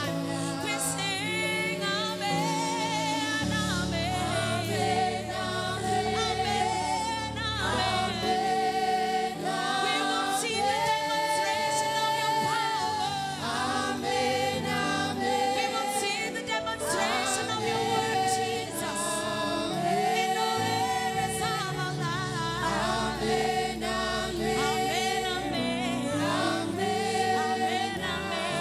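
Gospel worship music: a group of voices singing with instrumental backing underneath.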